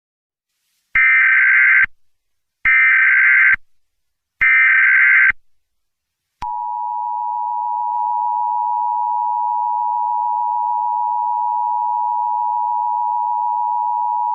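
Emergency Alert System tones: three one-second bursts of the SAME header's screeching digital data, then the steady two-tone EAS attention signal starting about six seconds in.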